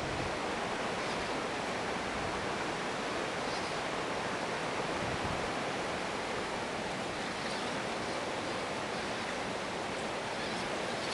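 Steady rushing noise with no clear tone or rhythm: wind on the microphone.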